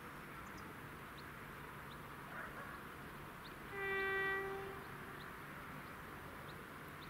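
Railway locomotive horn sounding one short blast of about a second on a single steady note.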